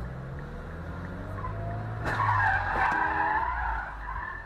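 Car tires squealing in a skid, starting suddenly about two seconds in and lasting under two seconds with a wavering pitch, over the steady low hum of a vehicle.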